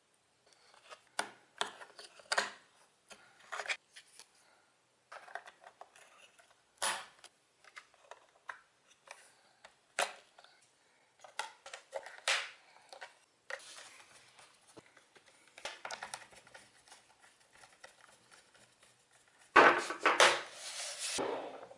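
Hands working on a laptop: scattered sharp plastic clicks, taps and small handling noises, with a louder scraping rustle near the end.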